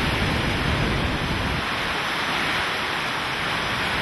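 Hurricane-force wind and driving rain make a steady, loud rushing hiss. A low rumble of wind buffeting the microphone eases off about one and a half seconds in.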